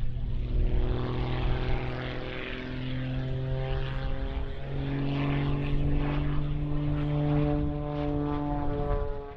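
Aerobatic propeller airplane's engine and propeller droning overhead during aerobatic manoeuvres, the pitch shifting and stepping up about halfway through.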